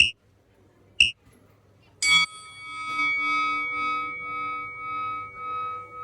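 Two short, high beeps a second apart, then a bell struck once and left ringing, several tones sounding together with a slow pulsing as it fades. The pattern is typical of a gym round timer signalling a round.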